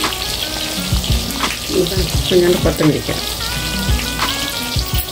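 Hot oil sizzling and crackling in a tempering (thalippu) of vadagam, curry leaves and ground Kashmiri chilli, with background music playing over it.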